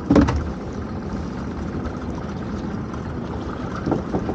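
Small boat's engine idling steadily, with a sharp knock right at the start and a lighter one near the end.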